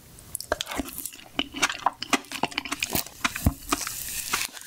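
Close-miked mouth sounds of eating soft ice cream: irregular wet smacks and clicks of lips and tongue on a spoonful, with the wooden spoon scraping inside the small ice cream cup.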